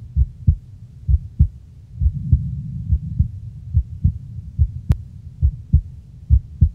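A slow heartbeat-like double thump, low and deep, repeating in pairs a little faster than once a second, with a single sharp click about five seconds in.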